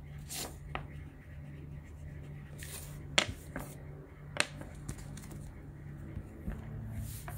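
A few sharp clicks and taps as a paper card and pens are handled and set down on a tabletop, over a steady low hum.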